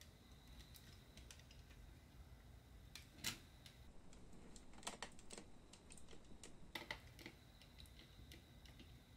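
Faint clicks and taps of hard plastic parts of a 1/20 Tamiya snap-fit model kit being handled and pressed together as the front suspension goes on. A sharper click comes about three seconds in, with small clusters of clicks near five and seven seconds.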